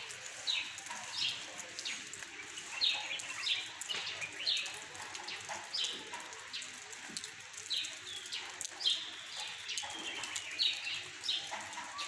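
Bird calls: short, high, falling notes repeated over and over, about once or twice a second, over a soft steady hiss.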